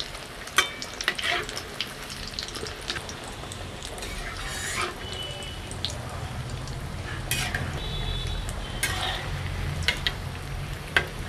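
Egg-and-biscuit-crumb-coated fish chops deep-frying in hot oil in a kadai, a steady sizzle. Short scrapes and clinks of a utensil against the pan come now and then as the chops are turned and lifted out.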